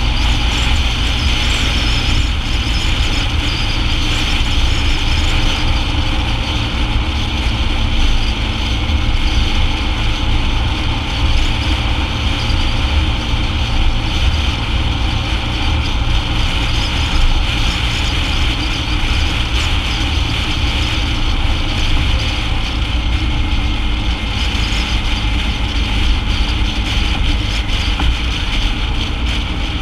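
BMW motorcycle riding steadily at road speed: engine and road noise mixed with a heavy, unbroken wind rumble on the bike-mounted camera's microphone.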